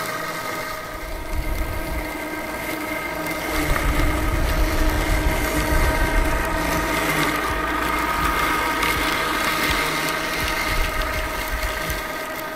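Yardcare M800 Plus robotic lawn mower running across grass, its electric motors giving a steady whine of several pitches over a low rumble. It grows louder a few seconds in as it comes close.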